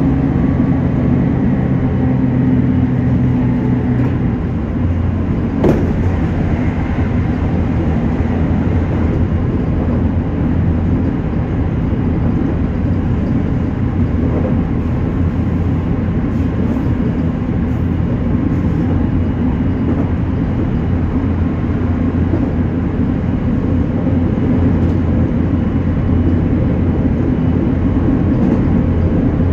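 JR Kyushu 813 series electric train running along the line, heard from inside the front car: a steady rumble of wheels on rails. A steady hum fades out about four seconds in, and there is a single click near six seconds.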